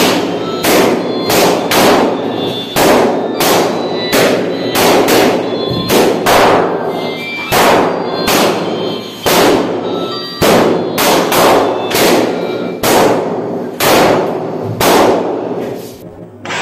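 Rubber party balloons being squeezed until they burst, one loud sharp pop after another at about one to two a second, each with a brief ring after it.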